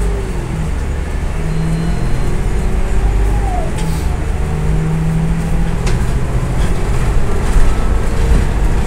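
Interior of a Citybus Alexander Dennis Enviro500 double-decker bus driven hard: engine and transmission drone under load with road noise, and a few brief knocks from loose interior fittings.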